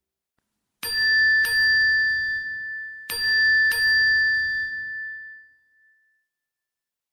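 A bell-like ding chime sound effect struck twice in quick succession, then twice again about two seconds later. The ringing fades out over a couple of seconds after the last strike.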